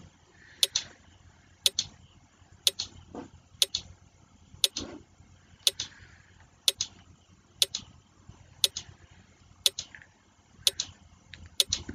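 Countdown timer sound effect ticking evenly, about once a second, as the time to answer a quiz question runs down.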